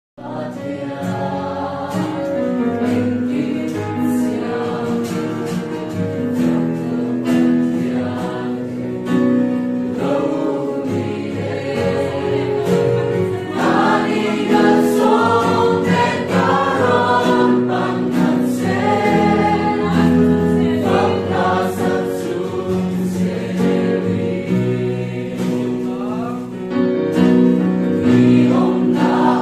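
A church choir singing a gospel song, starting abruptly.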